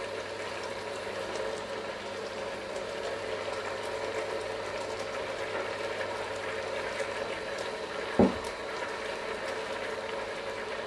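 Pot of beef and oxtail in broth boiling on the stove, a steady bubbling hiss, with one brief thump about eight seconds in.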